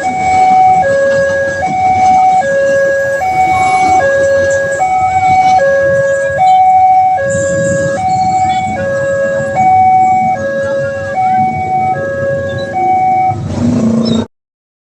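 Railway level-crossing warning alarm sounding a two-tone hi-lo siren, switching between a higher and a lower note about every 0.8 seconds, to warn that a train is approaching. It cuts off abruptly near the end.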